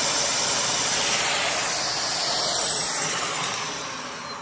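Vacuum-powered LEGO two-cylinder boxer engine running fast under the steady rushing hiss of the vacuum cleaner's suction, with its right piston blown. About three seconds in, the sound begins to fade as the vacuum winds down.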